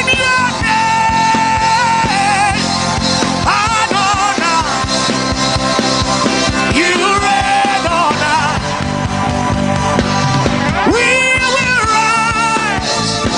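Worship music: a band playing steadily, with a wavering sung or instrumental melody over it.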